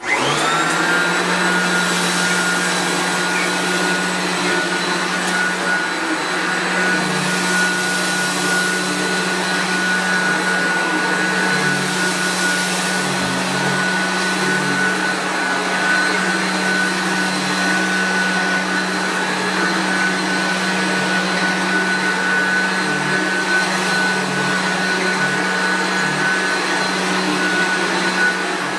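Koblenz U-80 Endurance commercial upright vacuum's 7-amp motor switched on by releasing the upright handle. It spins up with a brief rising whine, then runs steadily with a high whine over a low hum.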